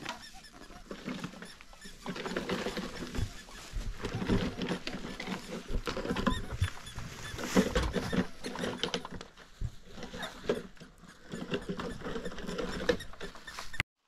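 Plastic shopping bags rustling and crinkling as they are handled and carried, with footsteps on gravel; the irregular crackle stops abruptly near the end.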